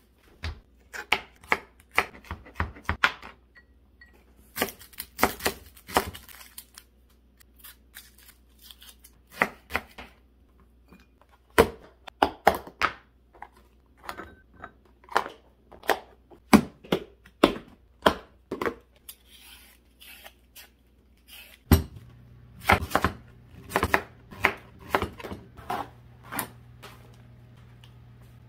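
Kitchen food-prep handling: irregular knocks and taps of bowls, containers and food being set down on a countertop and plastic cutting board, with a few stretches of paper rustling. A low steady hum comes in about three quarters of the way through.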